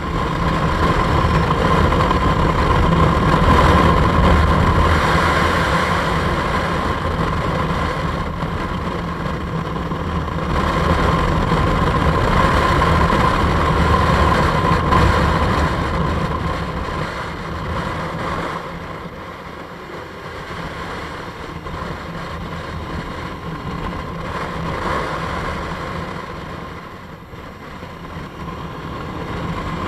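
Motorcycle engine running at road speed under steady wind noise on the microphone, swelling and easing as the rider speeds up and slows, quietest about two-thirds of the way through.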